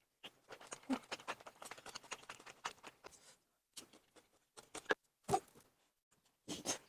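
Close-up mouth sounds of a person chewing food: a dense run of small wet clicks for about three seconds, then a few shorter bursts of chewing.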